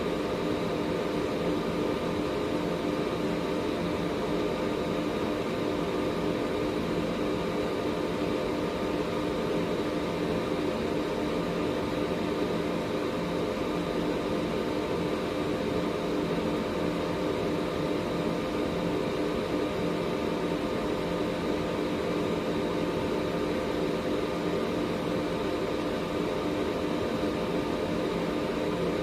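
Air purifier running steadily: an even rush of air from its fan, with a steady motor hum and a few fainter fixed whines above it.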